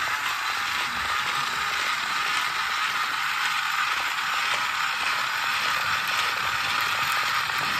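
Battery-operated shark-shaped toy car running on a tile floor, its small motor and plastic gears whirring and rattling steadily.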